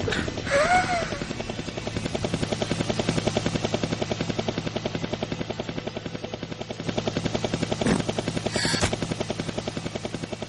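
Cartoon flying robot's helicopter-like rotor sound effect: a steady, fast chopping whir of about nine beats a second. A short squeaky call comes about half a second in, and two sharp metallic clanks come near the end.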